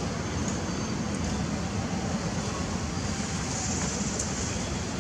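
Steady outdoor background noise with a low rumble, even throughout, with no monkey calls standing out.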